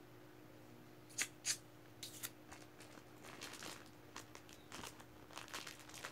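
Plastic bag being handled and cut open: a few sharp clicks in the first couple of seconds, then soft crinkling and crackling of the plastic that grows busier toward the end.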